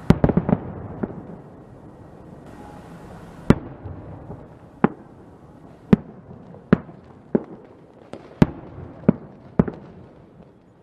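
Fireworks going off: a quick cluster of sharp bangs at the start, then single bangs about once a second over a faint hiss.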